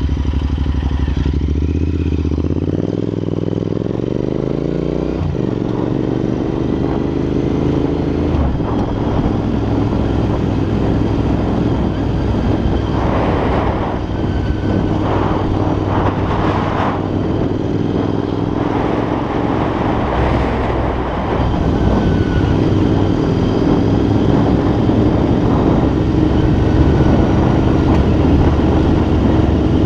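Royal Enfield INT650's parallel-twin engine through Red Rooster aftermarket exhausts while riding: the engine note climbs in pitch, drops suddenly at a gear change about five seconds in, then runs steadily at cruising speed. Wind buffets the microphone in gusts midway through.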